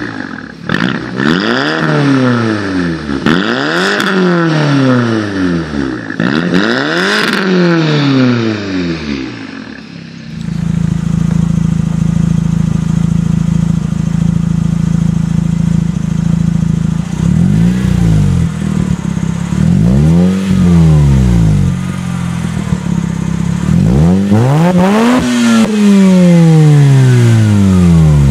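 A straight-piped Saab 2.0t's turbocharged four-cylinder is revved four times, each rev rising and falling, with sharp pops. Then a 2004 Mazda RX-8's rotary engine idles through a Mazdaspeed exhaust, is blipped twice, and is revved higher near the end.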